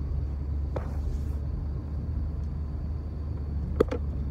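Steady low rumble of a car's engine and tyres heard inside the cabin as it drives slowly, with a faint tick about a second in and a sharp click near the end.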